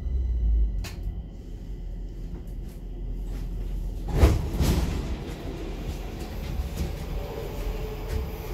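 Interior of a Stockholm metro car at a station platform: a steady low rumble, broken about four seconds in by two loud clunks close together.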